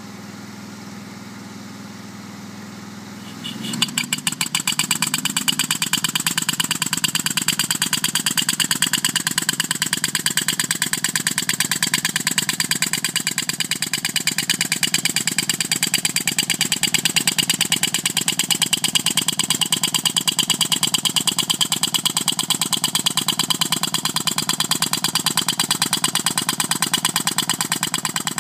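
A steady engine hum, then about four seconds in a 65 mm prototype pneumatic ground-piercing tool (impact mole) starts up suddenly and hammers very rapidly and evenly as it drives itself into the soil.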